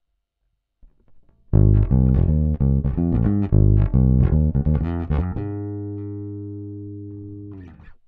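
Yamaha RBX270J four-string electric bass played fingerstyle. A quick line of plucked notes starts about a second and a half in, then one low note is left to ring and fade for about two seconds before it is muted.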